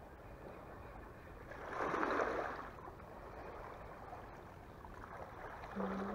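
Sea water lapping and washing against a rock seawall, with a louder splashing wash about two seconds in.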